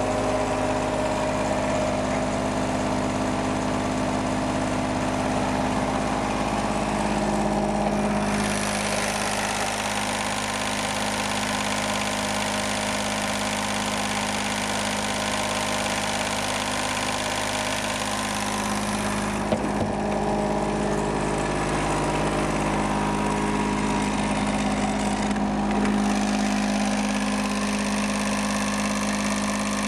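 Denyo DPS-50SS soundproofed screw compressor's diesel engine idling steadily. A brighter hiss is added for about ten seconds in the middle, with one short click as it falls away.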